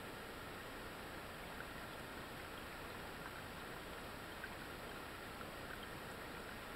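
Small forest creek trickling steadily, with a few faint tiny ticks of water.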